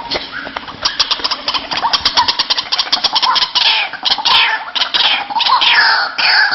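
White-breasted waterhen calling: a fast run of short repeated notes, then loud falling calls repeated about twice a second.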